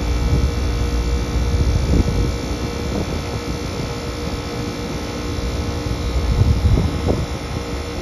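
Trane heat-pump rooftop unit running in cooling mode with its indoor blower shut off: the compressor and condenser fan make a steady hum. Wind buffets the microphone in gusts.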